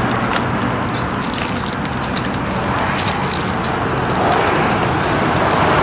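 Crinkling and rustling of plastic and paper packaging as phone accessories are lifted out of their box, many small crackles over a steady background noise.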